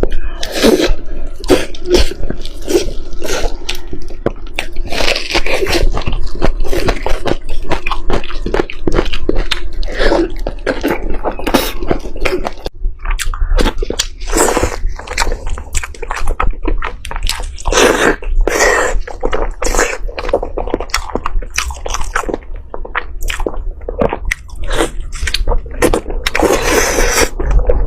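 Close-miked chewing of food: dense, irregular wet smacks and clicks of the mouth working a mouthful.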